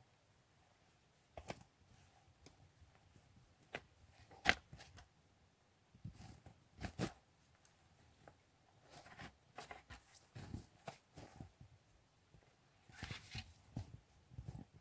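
Faint, scattered crunches, rustles and clicks of handling gear in snow: a backpack set down and touring ski bindings being released, with one sharp click about four and a half seconds in. Footsteps crunch in the snow near the end.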